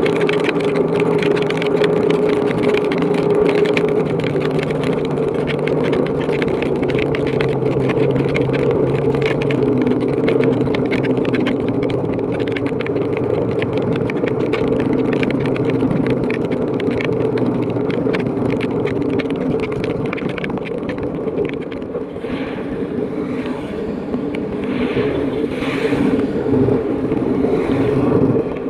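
Motorcycle engine running steadily at road speed, with wind and heavy rain noise over the handlebar-mounted microphone.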